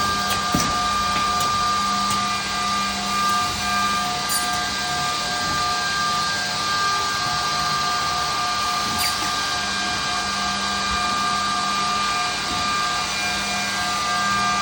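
Edge banding machine running steadily: a constant mechanical noise with several whining motor tones over a low hum, with a few light clicks.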